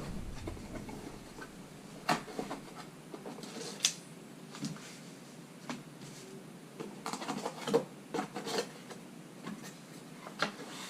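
Camera box being opened and its packaging handled: rubbing and scraping, with scattered short clicks and knocks.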